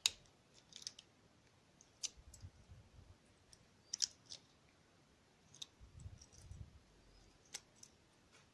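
Faint, scattered metallic clicks and a few soft low knocks as a DOM ix6 SR euro cylinder and its tools are worked to get the core out.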